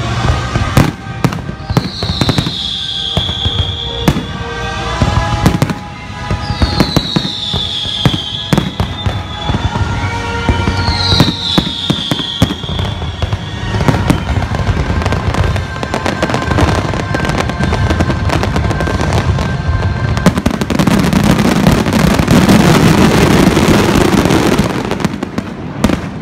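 Fireworks display going off in rapid succession, sharp bangs and booms with three falling whistles in the first half, over the show's music. For about the last five seconds the bursts merge into a dense, continuous crackle as crackling shells fill the sky.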